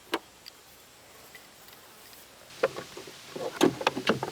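Handling of an opened planer: a single sharp click, then a quick run of clicks, taps and scraping on its parts in the last second and a half.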